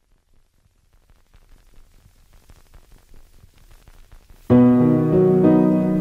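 Instrumental music: a faint crackle builds slowly, then about four and a half seconds in a loud piano chord enters suddenly and is held, shifting to a new chord about a second later.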